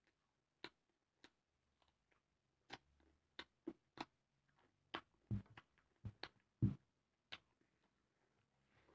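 Close-up eating sounds: a person chewing with their mouth open, making irregular sharp lip smacks and wet mouth clicks. A dozen or so clicks come unevenly, and the heaviest smacks fall about halfway through.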